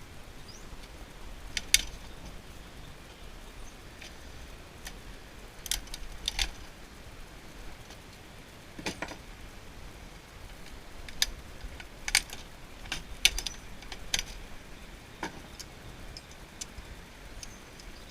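Scattered sharp clicks and clacks of metal and plastic computer parts being handled and pulled apart by hand, about ten at irregular intervals, over a low steady background rumble.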